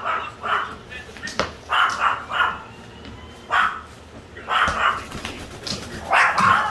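Short, loud bark-like calls, about six in a row with short pauses between them, and a sharp click or knock about a second and a half in.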